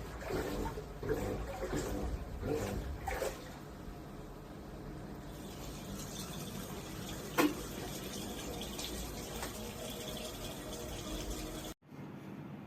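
Midea MA200W95 top-load washing machine running with water in the drum: rhythmic sloshing about twice a second at first, then a steadier rush of water with a single sharp click midway.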